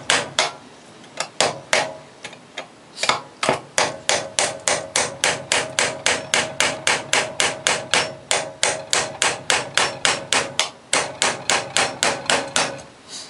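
Hammer striking a metal punch set in the groove of a Sturmey-Archer three-speed hub, to crack it loose. A few blows, a pause of about two seconds, then a long even run of about three to four blows a second with a ringing note under them.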